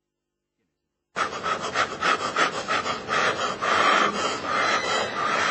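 Silence for about a second, then a man panting hard in quick rhythmic breaths, about five a second at first, then more ragged, as in labour.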